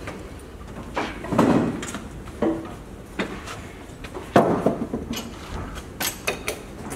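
Knocks and clanks of metal push poles and clamps being set against a wooden hull plank during planking. Several separate knocks with short clatters between them: the loudest comes about four and a half seconds in, and a quick run of clicks follows near six seconds.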